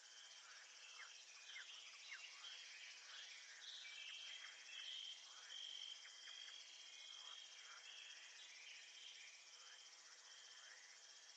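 Faint chorus of crickets and other insects: a steady high shimmer with a trill near the top, and many short chirps scattered through it.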